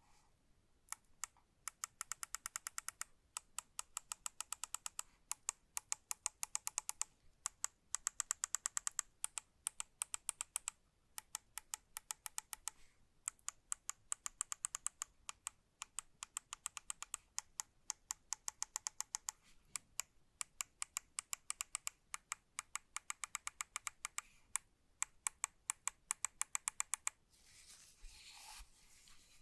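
Razer Naga Pro gaming mouse clicking in rapid runs of evenly spaced clicks, about ten a second, broken by short pauses. A brief rubbing of handling comes near the end.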